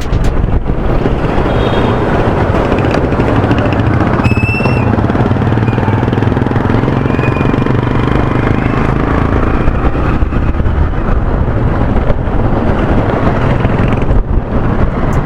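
Motorcycle engine running under way with road and wind noise, picked up by an action camera's external microphone. A brief high-pitched beep sounds about four and a half seconds in.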